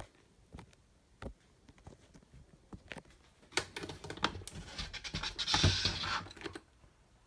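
A hand works the metal carry handle on top of a wooden tool chest: a few light clicks at first, then from about three and a half seconds in a few seconds of scraping and rattling, loudest just before it stops.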